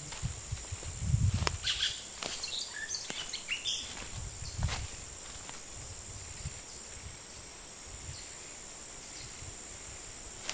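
Footsteps on a dirt forest trail in the first half, fading out, over rainforest ambience: a steady high insect drone with a few short bird chirps.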